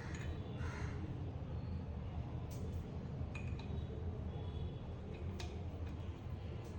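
A few light metallic clinks, spaced irregularly a second or more apart, over a steady low hum.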